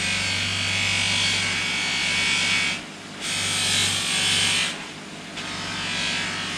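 Bench buffer running with a steady motor hum while a metal part is pressed against its spinning buffing wheel, giving a loud hissing rush. The rush breaks off briefly twice, about three seconds in and again about five seconds in, as the part comes away from the wheel, while the motor hum carries on.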